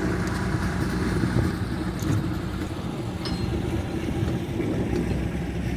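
Diesel engine of the Hunslet narrow-gauge locomotive NCB 'Linby' running with a steady low rumble as it pulls a passenger coach away along the track.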